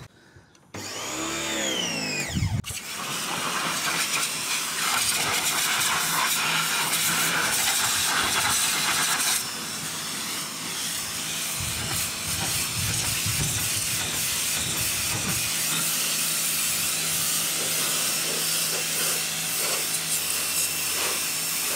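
Titan electric pressure washer starting up about a second in with a brief rising and falling whine, then its jet spraying water steadily from the lance against the van's bodywork and wheel arch: a loud steady hiss over the pump motor's hum. The spray sound changes slightly about nine seconds in as the jet moves along the panel.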